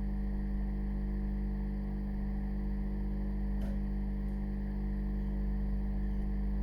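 Steady electrical hum with several even, unchanging tones, and one faint click about three and a half seconds in.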